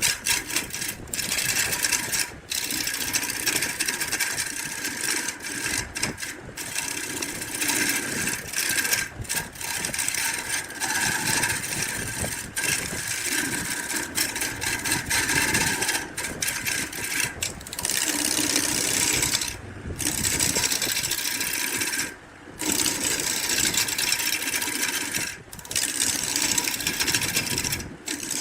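Small electric power tool working wood, running steadily with brief stops every few seconds.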